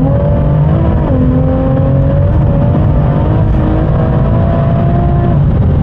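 Big-turbo BMW M140i's tuned 3.0-litre straight-six, running about 36 psi of boost, accelerating hard at full throttle, heard from inside the cabin. The engine note drops at an upshift about a second in, then climbs slowly and drops again at another shift near the end.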